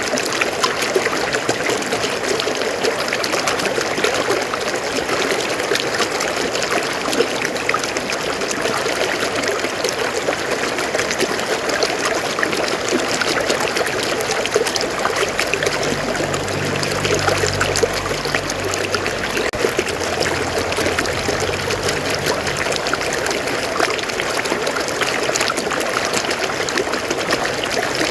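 River water flowing over rocks: a steady rushing with fine trickling and splashing. A low drone comes in a little past the middle and fades out several seconds later.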